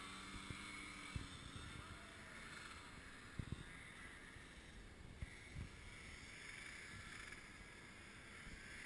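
Faint snowmobile engine fading away into the distance during the first second or so. After that there is near silence with a light hiss and a few soft knocks close to the microphone.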